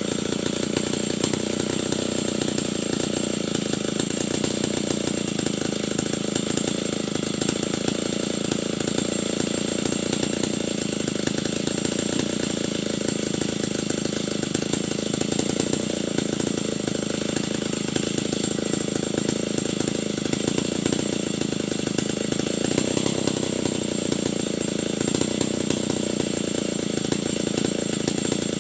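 Stihl 070 two-stroke chainsaw running steadily at speed, sawing timber into boards.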